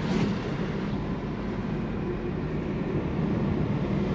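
Steady engine and road noise inside the cabin of a moving Mitsubishi Xpander taxi: a low, even rumble and hum.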